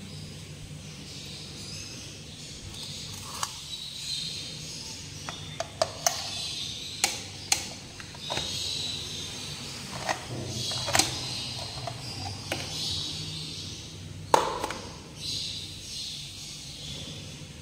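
Handling clatter of a steel colander and a plastic bowl: a dozen or so sharp clinks and knocks, scattered and irregular, with the loudest knock near the end, over a steady background hiss and low hum.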